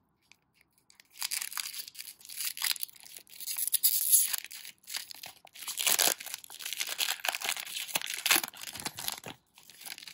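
A foil Pokémon booster pack being torn open and its wrapper crinkled as the cards are pulled out. The crackling is loudest about four and six seconds in.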